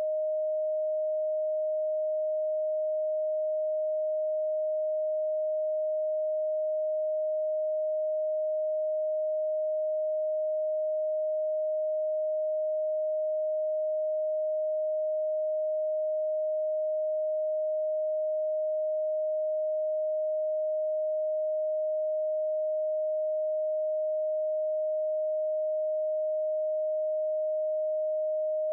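A steady pure sine tone at one unchanging mid-range pitch: an electronically generated 'Rife frequency' test tone.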